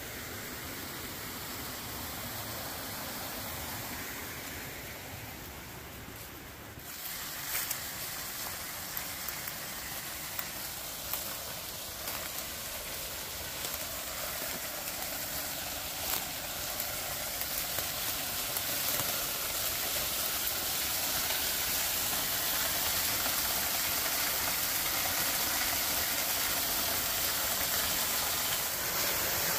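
Steady rush of flowing water that grows gradually louder, with a few faint clicks from about seven seconds in.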